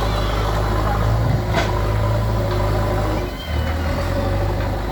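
Heavy diesel engine running steadily, its note dipping briefly about three seconds in, with a sharp click about a second and a half in.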